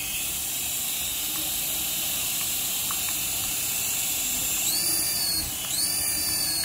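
Toy RC helicopter's small electric motors whirring steadily with the rotor blades spinning. A higher whine rises, holds and falls twice near the end.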